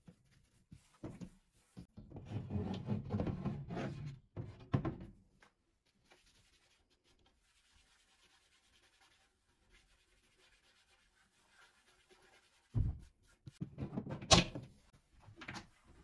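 A cloth wiping a melamine cabinet shelf, a dense rubbing for a few seconds, then quiet. Near the end come several knocks as a loose shelf board is handled against the cabinet, one of them a sharp bang.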